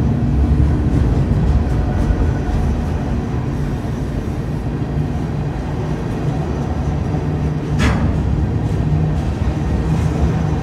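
Freight train of boxcars rolling past at close range: a steady low rumble of wheels on the rails, with a short burst of higher-pitched noise about eight seconds in.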